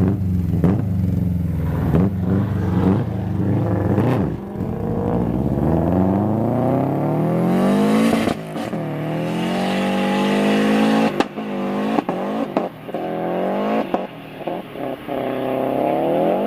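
A car engine accelerating hard under full throttle. Its pitch holds, then climbs, dropping back at gear changes about 8 and 11 seconds in, followed by a string of short rising rev flares near the end, which are put down to a slipping clutch.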